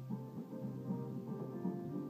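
A small band playing live together: a strummed acoustic guitar over electronic keyboard, with a held low note underneath and a steady rhythm.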